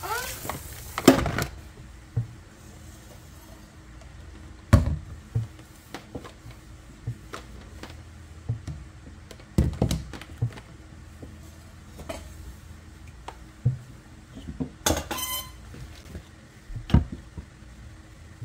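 Household objects being set down and shifted on a stone countertop: scattered knocks and clunks of a metal stand and ornaments, about half a dozen over the stretch, one near the end of the middle with a brief metallic rattle.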